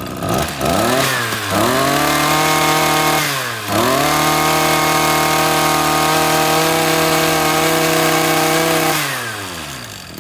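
Ryobi two-stroke brush cutter engine revved up, easing off briefly twice and then held at high revs, before the revs fall away near the end as the throttle is let go.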